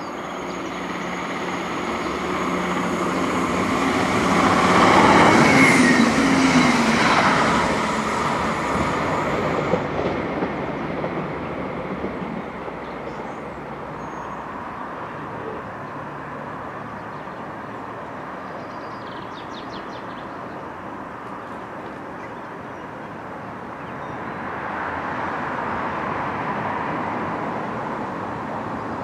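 ScotRail Class 170 Turbostar diesel multiple unit running past on the track, its underfloor diesel engines and wheels getting louder and then falling in pitch as it passes, about five seconds in. Later the line goes quieter, and a Class 385 electric unit is heard approaching near the end.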